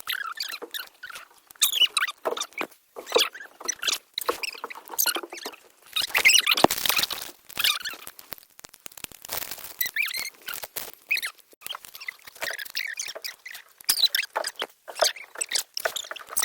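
Irregular rustling, crackling and scraping in quick short bursts with brief gaps, loudest around the middle.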